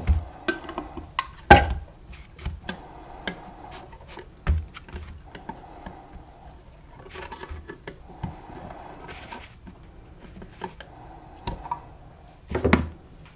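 Metal stain and polyurethane cans and their lids being handled on a workbench: scattered clicks and clinks of metal, with sharper knocks about one and a half seconds in and again near the end.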